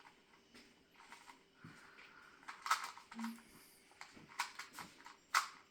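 Sharp plastic clicks of a 2x2 Rubik's cube being turned: a handful of separate clacks, mostly in the second half, the loudest near the end.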